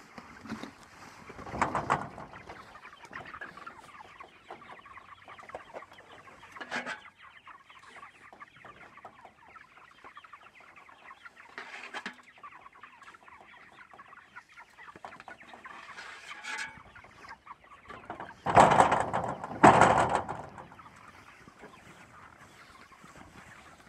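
A flock of young white meat chickens in a pasture shelter clucking and cheeping steadily. Scattered knocks of feed-scoop and shelter handling come through, with two loud clatters about three-quarters of the way through.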